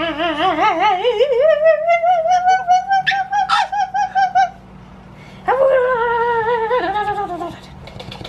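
Two long howling calls with a deep, wavering pitch: the first rises and is held until about four and a half seconds in, the second starts about a second later and sinks away.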